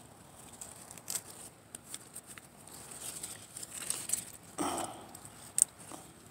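Loose-leaf lettuce being cut from the bed by hand: crisp leaf snaps and rustling of leaves, with a louder rustle about four and a half seconds in.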